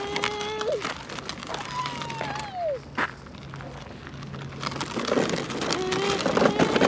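A child's voice imitating a car engine: held humming tones, a falling 'neeow' glide about two seconds in, and more held tones near the end, over crackling noise that grows louder near the end.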